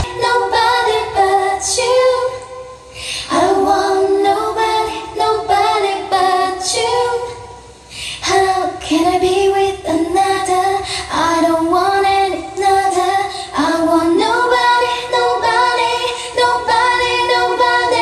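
Music playback of a high singing voice carrying a slow melody in phrases with short breaks, with light accompaniment and almost no bass.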